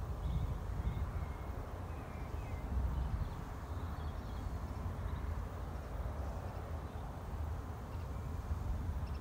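Wind rumbling over the microphone in an open field, with a few faint bird chirps above it in the first half.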